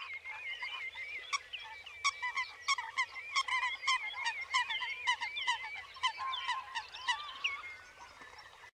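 A flock of birds calling together: many short chirps and squawks overlapping in a busy, continuous chatter, with sharp clicks among them.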